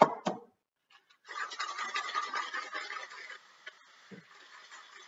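A couple of sharp metal knocks as a two-piece metal cocktail shaker is pressed shut, then, from about a second in, ice rattling steadily inside the shaker as it is shaken hard.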